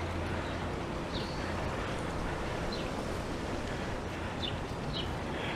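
Steady background noise with a low hum, over which a bird gives about five short, high chirps.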